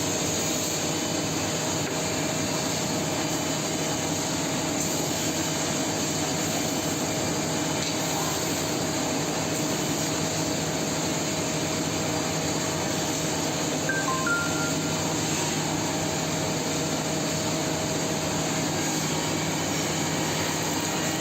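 Six-sided CNC panel drilling machine running a drilling cycle: a steady whir of motors and extraction with a constant tone through it. About two thirds in comes a short two-note electronic beep.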